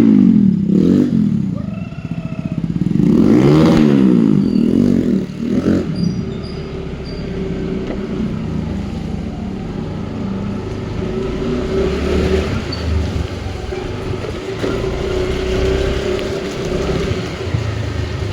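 Motorcycle single-cylinder engine through an aftermarket SC Project-style exhaust, revved up and back down twice in the first few seconds, then holding a steady note.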